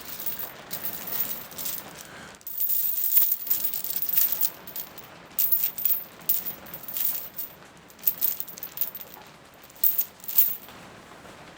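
Irregular bursts of rattling and rustling, like small objects being handled or shaken, coming in clusters for most of the stretch.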